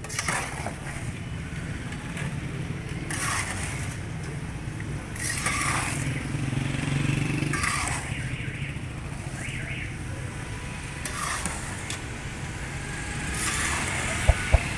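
Long metal spatula scraping and stirring peanuts through hot salt in a large iron wok, a rasping, rattling stroke every few seconds over a steady low hum. Two sharp knocks near the end.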